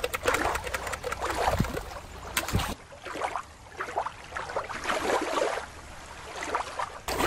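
Shallow water lapping along a rocky shore, with wind rumbling on the microphone. About three seconds in it cuts abruptly to a quieter, thinner water sound, then cuts back just before the end.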